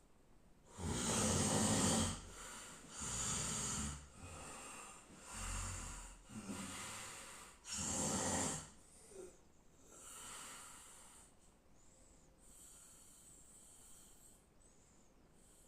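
A series of rasping, snore-like breaths, each about a second long, about five loud ones in the first half followed by fainter ones.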